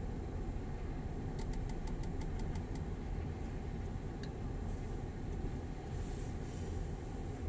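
Lorry diesel engine running as a low, steady rumble. A quick run of about ten light clicks comes a second and a half in, and a brief hiss near the end.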